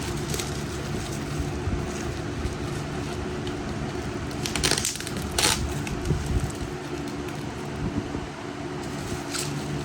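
Packaging being unwrapped by hand around an old light bulb, crinkling and rustling, with two louder crackles near the middle.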